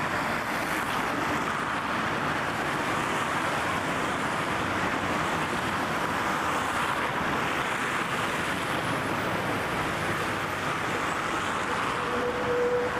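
Steady city street traffic noise, the even wash of cars driving along a busy boulevard. Near the end a single steady tone starts up over it.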